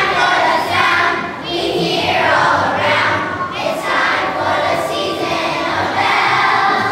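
Children's choir of young schoolchildren singing a song together.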